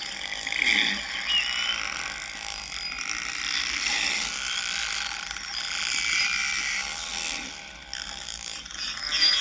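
An animal's call played back: a continuous high-pitched chattering of rapid clicks and rattles with short whistles mixed in.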